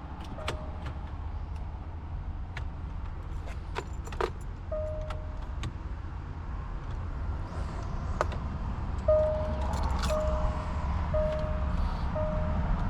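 A car's electronic warning chime repeating in short beeps about twice a second from the last few seconds on, with scattered clicks and key jingling over a steady low rumble.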